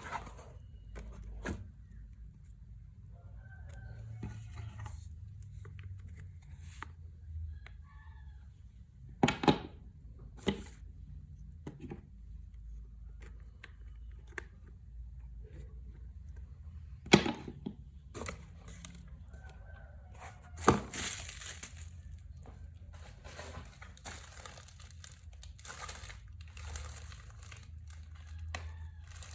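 Packaging being handled and opened: crinkling and tearing, with several sharp knocks and clicks scattered through and a longer stretch of rustling in the second half.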